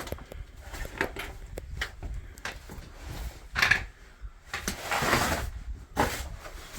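Handling noise from a stowed camera while a hiker scrambles through rocks: irregular rustling and scraping swishes with short knocks, one longer swish near the end.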